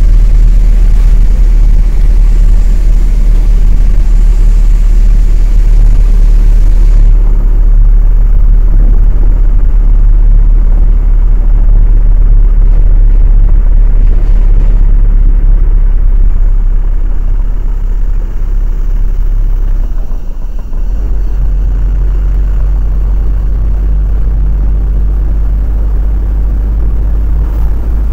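Lorry's diesel engine running under way, heard from on board as a loud, steady low rumble. About twenty seconds in the sound dips briefly, then the engine settles at a slightly different pitch.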